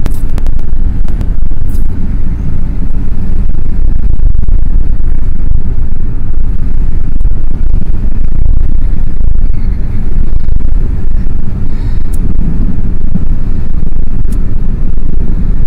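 Steady, loud low rumble of a car driving, heard from inside the cabin.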